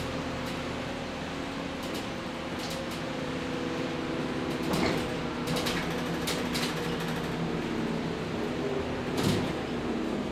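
Cabin noise of a moving city bus: a steady engine drone with rattles and knocks from the bus's fittings. The loudest knocks come about five seconds in and again near nine seconds.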